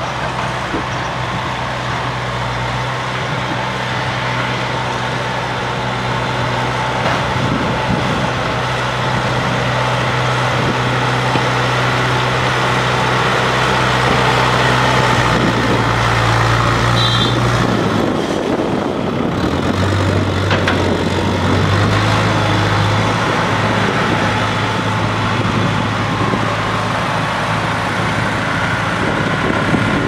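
JCB backhoe loader's diesel engine running steadily as the machine drives closer, growing gradually louder; the engine note shifts slightly a little past the halfway point.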